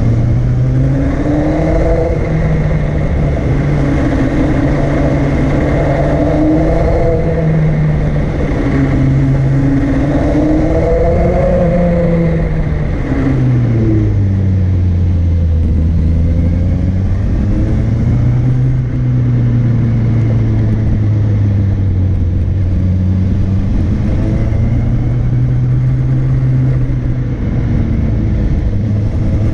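Vehicle engine running under load on a climb, its pitch rising and falling with the throttle. It drops sharply about halfway through and then holds at a lower pitch, with wind and road noise throughout.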